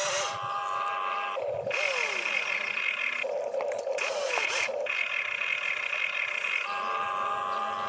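Small electric motors of an RC excavator whining in turns as it swings and tips its bucket: each whine lasts one to two seconds, and the pitch jumps from one to the next as a different function takes over. Two of the stretches are a lower buzz with falling whines.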